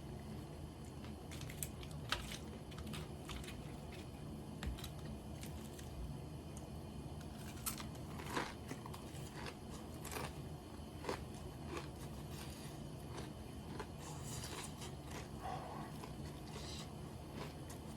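Close-miked chewing and biting of karaage (Japanese fried chicken), with irregular crisp crunches over a steady low hum.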